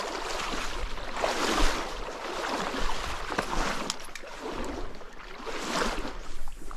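Stream water rushing and splashing in several surges as a hooked trout is played toward the angler.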